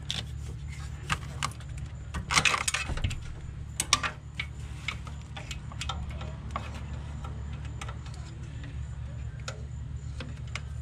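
Socket ratchet clicking and metal tools clinking while a spark plug is loosened, with a cluster of clicks two to three seconds in and scattered clicks afterwards, over a steady low hum.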